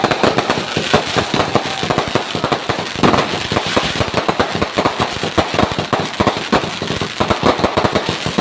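Fireworks going off: a dense, continuous crackle of many rapid pops and bangs, several each second with no pause.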